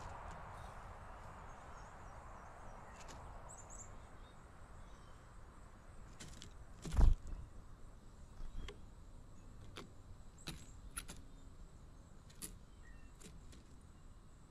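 Outdoor ambience at a bird feeder: a wash of noise that fades away over the first few seconds, then one loud thump about halfway through followed by scattered light clicks and taps, with a few faint high chirps.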